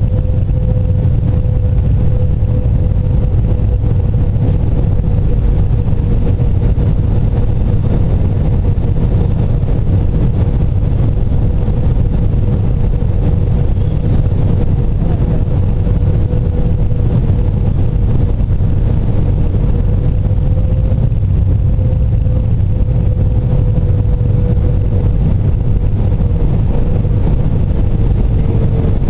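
Airbus A320 cabin noise on final approach: a steady, loud low rumble of jet engines and rushing air, with a steady humming tone over it that wavers slightly in pitch.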